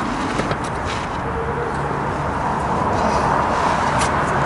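A wrench tightening a sway bar end link nut, giving a few light metal clicks over a steady outdoor background hum.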